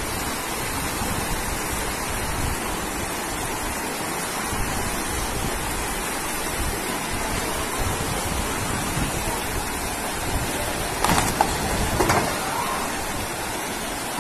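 Fast-flowing floodwater rushing through a street as a steady, even rush of water. A couple of brief knocks come about eleven and twelve seconds in.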